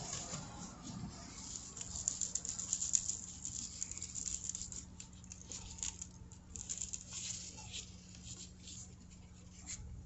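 Gloved hand rubbing seasoning into an oil-coated potato: an irregular run of soft, sticky crackles and ticks that thins out near the end.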